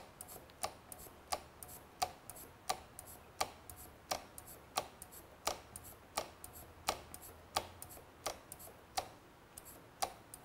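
A Honda motorcycle's front brake lever being pumped steadily to flush and bleed the brake fluid, with a light click at each stroke, about three every two seconds, growing fainter near the end.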